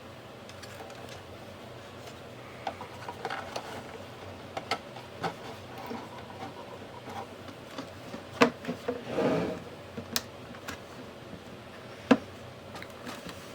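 Scattered small clicks, taps and rubbing from the plastic casing and wires of a small Bluetooth radio being handled and fitted back together, with a louder scraping rub about nine seconds in.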